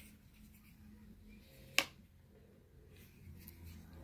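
A single sharp click a little under two seconds in, like hard plastic being handled or snapped, over faint handling noise.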